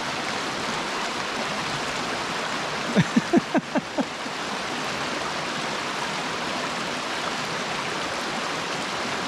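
Creek water rushing steadily over rocks, with a quick run of about six short high-pitched cries about three seconds in.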